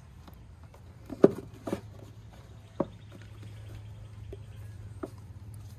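A few short, sharp clicks and knocks, the loudest about a second in, as hands press the small plastic rock-light control module into place and handle its wires in the engine bay, over a low steady hum.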